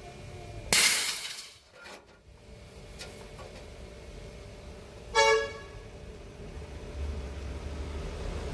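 A single short vehicle horn toot about five seconds in. It is preceded near the start by a loud burst of hiss that fades away over about a second.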